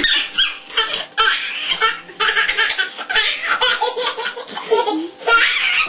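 A baby laughing hard, belly laughs in quick repeated bursts.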